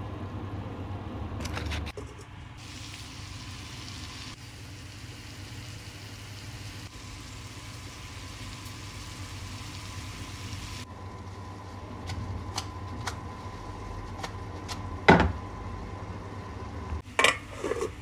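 Chicken pieces sizzling in a frying pan over a steady low hum. There is a sharp clank of cookware about fifteen seconds in, and a few smaller knocks near the end.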